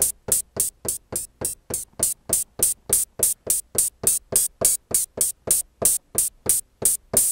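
Electronic open hi-hat from a Native Instruments Grey Forge drum-synth kit, hit repeatedly at an even pace of about three and a half hits a second while its tune macro is adjusted. The last hit near the end rings out longer.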